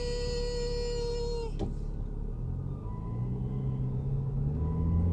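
A 2011 BMW 335i's unexplained whistling buzz: a steady high-pitched tone that cuts off about a second and a half in. Then the turbocharged straight-six engine's low note rises gently as the car pulls away.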